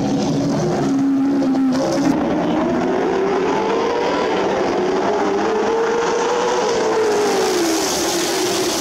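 A pack of late model stock cars racing, several V8 engines running hard together. Their pitch climbs through the middle and drops again near the end.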